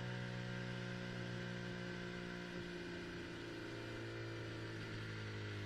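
Red Bull Formula One car's turbo V6 hybrid engine running at low, steady revs, heard onboard as the car is driven slowly into the pit lane.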